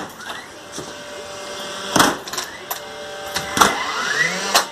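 DeWalt 18V cordless flywheel nail guns: the flywheel motors spin up with a rising whine and hold a steady whine. Nails fire with three sharp shots, about two seconds in, at about three and a half seconds, and just before the end.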